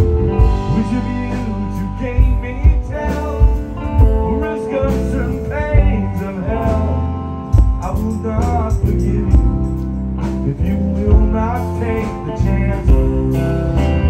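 Live rock band playing: electric guitar lines that bend in pitch over bass guitar and a drum kit.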